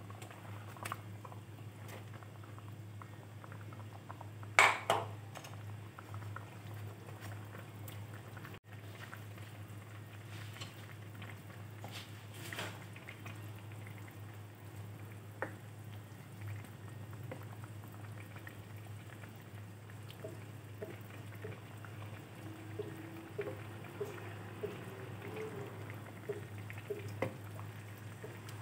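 Eggplant wedges tipped from a plate into a pan of simmering soup, with one loud splash about five seconds in and a few soft knocks of a wooden spatula pushing them about. From about two-thirds of the way through, the broth bubbles in small, frequent pops over a steady low hum.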